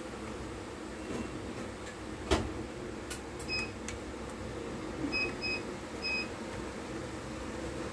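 A sharp knock as a hand presses a phone frame down into an alignment jig, followed by a few lighter clicks. Four short electronic beeps sound, one about three and a half seconds in and three more between five and six seconds, over a steady room hum.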